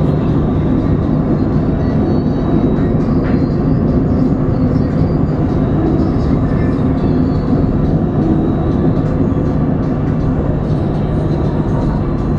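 Alstom Citadis 302 tram running on its rails, heard from inside the driver's cab: a steady low rumble of wheels and running gear with faint steady tones above it.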